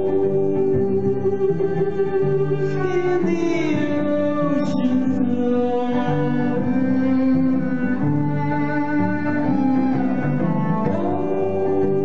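Amplified bowed violin playing slow, long held notes, several pitches sounding together and sliding slowly from one note to the next.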